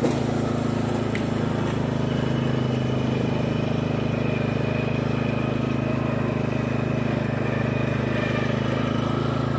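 Riding lawn mower's engine running steadily while the mower is driven, an even hum with no change in speed.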